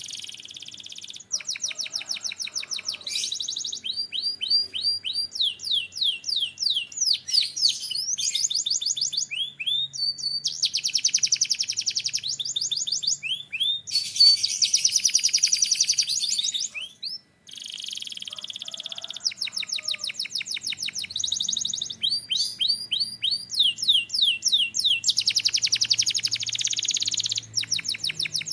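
Canary singing a long continuous song of rapid repeated high notes and trills, phrase after phrase, with one short pause about two-thirds of the way through.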